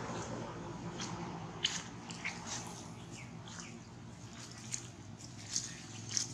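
Dry fallen leaves crackling and rustling in irregular short bursts under a macaque's and the filmer's footsteps, over a steady low hum.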